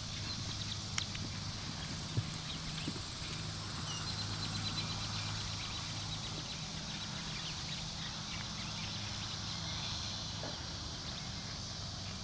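A horse's hooves on a soft dirt arena, a few sharp thuds in the first three seconds as it slows to a halt and then stands. A steady low hum and a high hiss run underneath.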